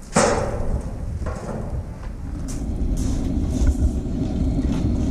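A sudden loud knock with a short ring just after the start, then a steady low background rumble with a few faint clicks.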